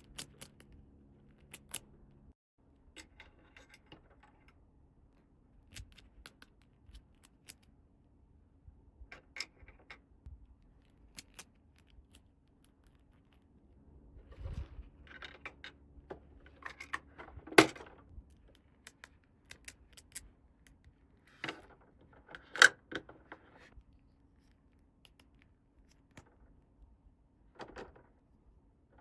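Small plastic toy pieces being handled: scattered light clicks, taps and brief rustles, with two louder sharp clicks in the second half.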